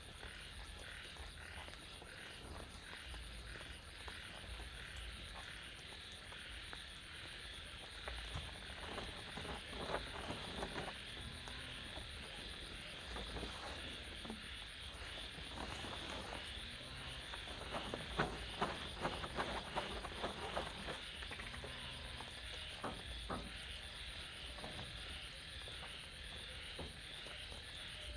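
A steady night chorus of frogs calling. Over it come irregular rustling and knocking from a tarp or tent being handled and set up, from about eight seconds in and loudest a little past the middle.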